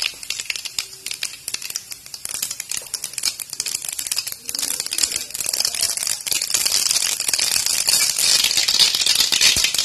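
Cooking oil heating in a metal kadai, crackling and sizzling with a dense stream of fine pops, growing louder toward the end.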